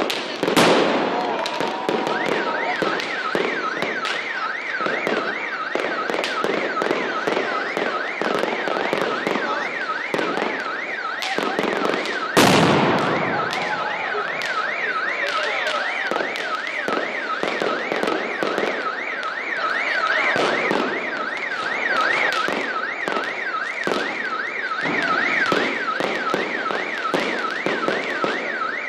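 Fireworks popping and crackling overhead in a steady stream, with two louder close bangs, one about half a second in and one about twelve seconds in. From about two seconds in, an alarm's wail sweeps up and down about three times a second underneath.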